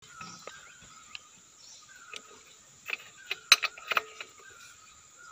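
Squeaking and ticking from an engine's accessory-belt pulleys: short squeaks recur every second or so, with a cluster of sharp clicks about three and a half seconds in.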